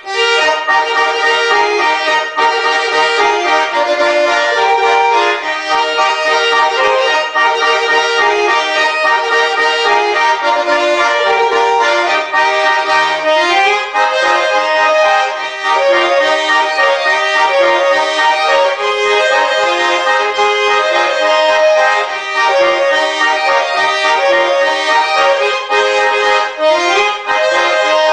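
Two Schwyzerörgeli, Swiss diatonic button accordions, playing a traditional Swiss folk tune together, with a steady rhythm of changing chords and melody notes.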